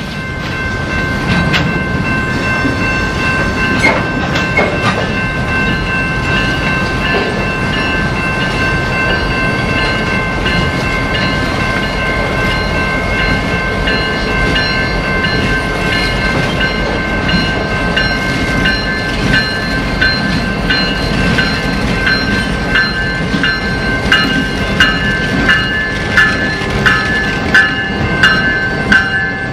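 Freight train with diesel locomotives and flatcars rolling past, a steady rumble with high-pitched ringing tones over it. Near the end come regular wheel clicks over the rail joints, about two a second.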